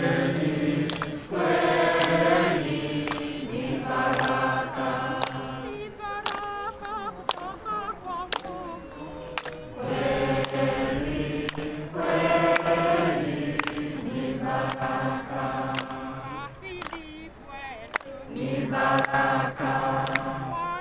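A group of people singing together, phrase after phrase with short breaks, accompanied by scattered hand claps.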